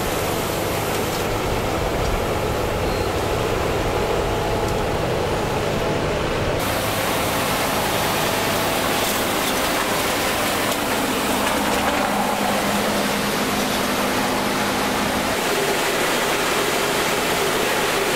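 Street-sweeper truck working, its engine and suction running with the rotating gutter brushes scrubbing the road: a loud, steady rushing noise with a low hum beneath.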